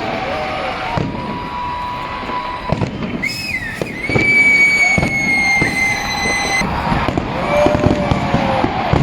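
New Year fireworks going off, a run of sharp bangs and crackles. Long held tones sound over them, the loudest lasting about two and a half seconds just before the middle.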